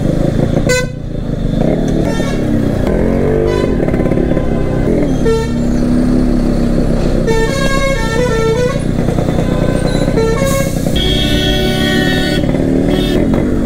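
Single-cylinder two-stroke engine of a Yamaha RX135 motorcycle running in slow traffic, with other vehicles' horns honking around it: several short honks and one long blast near the end.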